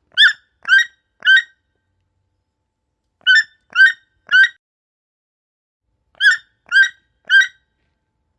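Toucan calling: three series of three short, hoarse croaking calls, about half a second apart, each series about three seconds after the last.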